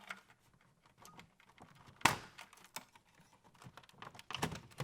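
Small clicks and knocks of hands working on a DCC recorder's cassette mechanism, unplugging cable connectors at its back: scattered light clicks, one louder knock about two seconds in, and a quick cluster of clicks near the end.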